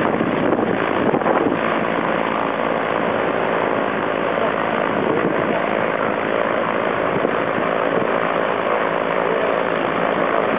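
Zlin 242 L light propeller aircraft, its four-cylinder Lycoming engine and propeller running steadily.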